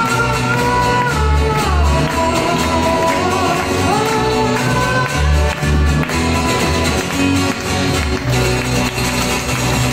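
Live acoustic folk band: steel-string acoustic guitars strumming under a man's lead vocal, the singing ending about six seconds in while the guitars play on.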